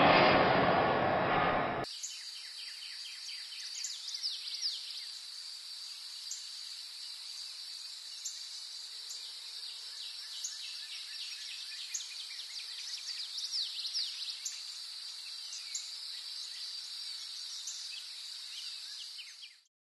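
A loud rushing noise cuts off abruptly about two seconds in. A nature ambience follows: many quick descending bird chirps over a steady high insect drone, fading out at the very end.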